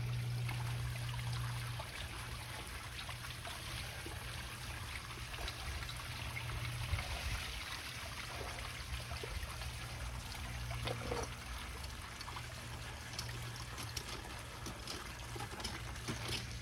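Artesian well water flowing up and spilling from the freshly cut well pipe in a steady stream under low pressure, over a low steady hum. A few light knocks come near the middle and near the end.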